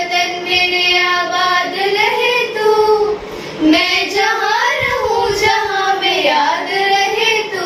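A girl singing a slow Hindi patriotic song unaccompanied, with long held notes that bend up and down in pitch.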